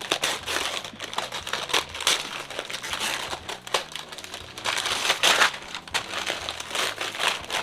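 Gift wrapping crinkling and rustling as a present is unwrapped by hand, in uneven crackles that are loudest around five seconds in.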